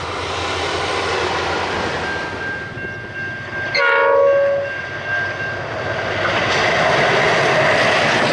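Diesel locomotives hauling a long container freight train, their engines loud as they approach and pass close by. One short horn blast sounds about four seconds in.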